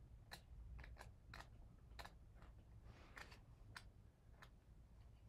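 Near silence with faint, scattered soft clicks from the pages of a paper magazine being handled and turned.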